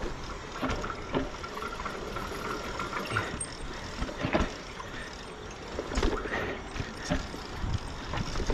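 Mountain bike rolling down a steep dirt and rock trail: tyres crunching over loose ground, with knocks and rattles from the bike hitting rocks and roots, a couple of them harder past the middle. Heard through a GoPro action camera's microphone riding along with the bike.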